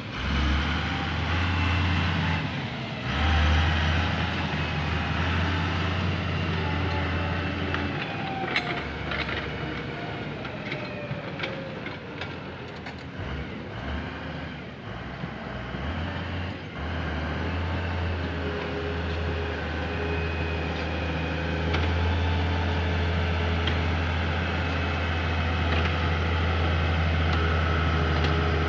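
Komatsu GD405A motor grader's diesel engine running under load while it spreads aggregate, a steady low hum. The engine drops back a little in the middle with a few sharp clicks, then grows louder from about halfway as the machine comes near.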